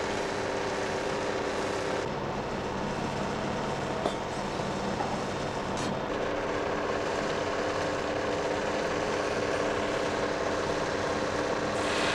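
Belt polishing machine (Pliestbock) for scissor eyes running steadily: a motor hum with several steady tones under the noise of the emery belt on its profile wheel. A couple of light clicks fall in the middle. Near the end comes a gritty hiss as a scissor eye is pressed against the belt.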